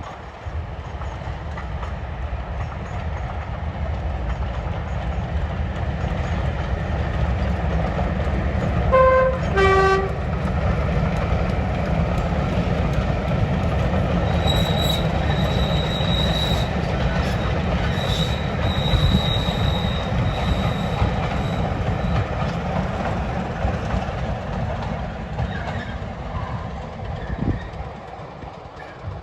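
Heritage diesel locomotive hauling a train past, its engine and wheel noise growing louder and then fading near the end. About nine seconds in it sounds a two-tone horn, a higher note then a lower one, and a thin high squeal runs for several seconds in the middle.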